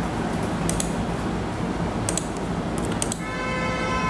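A few sharp computer-mouse clicks over a steady background hiss and hum. Near the end a steady electronic tone with several pitches starts and keeps going.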